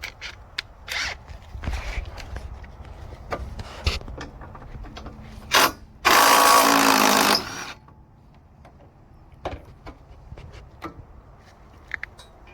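Unpacking noises from packaging and sawmill parts being handled: scattered clicks and knocks, a few short scrapes, and about six seconds in a loud rasping noise lasting about a second and a half.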